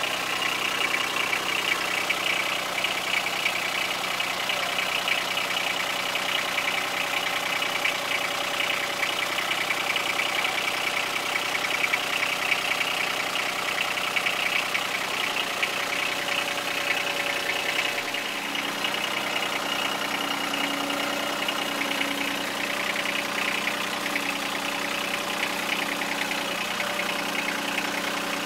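John Deere compact tractor engine running steadily at idle, its pitch shifting slightly lower about eighteen seconds in and then holding steady again.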